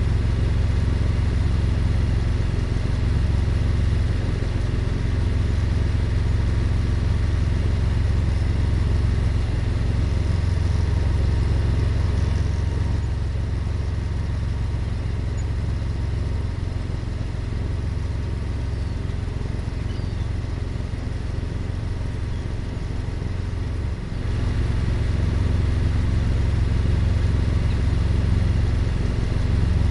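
A sailboat's auxiliary engine running steadily while motoring, a low rumble that gets a little louder about 24 seconds in.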